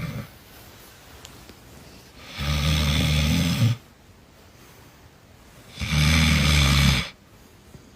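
A person snoring: two long, low snores, each a little over a second, about three and a half seconds apart.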